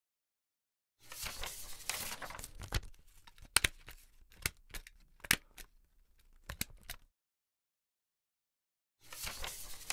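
Stapler and paper sound effects: paper rustling starts about a second in, followed by about half a dozen sharp clicks of a stapler being pressed, spread over some four seconds. The rustling returns near the end.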